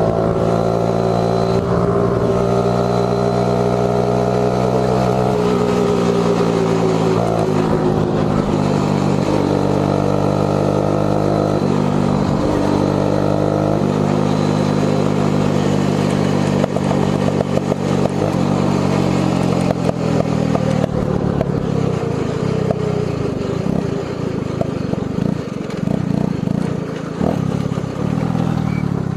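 1979 Honda ATC 110 three-wheeler's small single-cylinder four-stroke engine running under way, heard from a helmet-mounted camera, its pitch rising, dropping and stepping several times as the throttle and gears change. It turns rougher and noisier in the last third.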